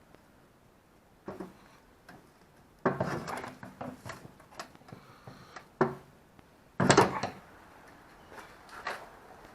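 Hand tools knocking and clattering against metal fittings while brake lines are worked off an ABS unit: a handful of separate knocks, the loudest about seven seconds in.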